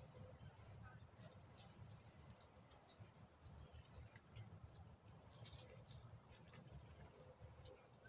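Faint, short, high-pitched bird chirps, a dozen or so scattered irregularly, over quiet outdoor background with a few soft clicks.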